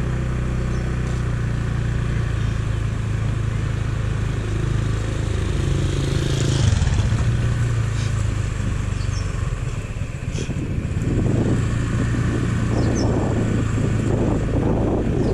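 Motorcycle engine running steadily while riding along a lane. The engine note changes briefly about halfway through, and wind rumbles on the microphone from about two-thirds in.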